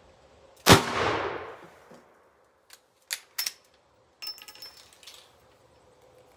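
One shot from a .44 Magnum lever-action rifle with a 20-inch barrel, its report ringing out and dying away over about a second. A few sharp metallic clicks follow, then a short clatter as the lever is worked open.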